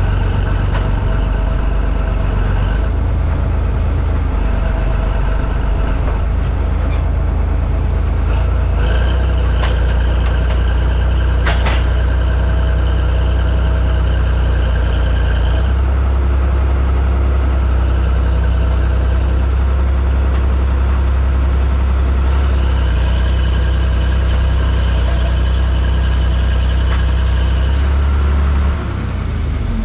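Vehicle engine running steadily under heavy load while towing an old harvester through sand, with a few light knocks. The engine eases off near the end.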